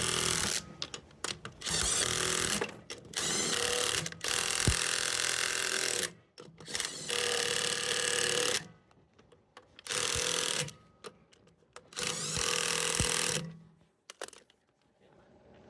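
Impact wrench running in repeated bursts of one to two seconds with short pauses between them, about seven in all, as it tightens lug nuts onto a spare wheel.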